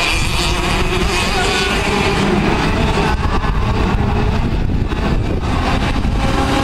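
Several KF2 karts' 125 cc two-stroke engines running at racing speed, their overlapping high engine notes shifting in pitch as the karts pass.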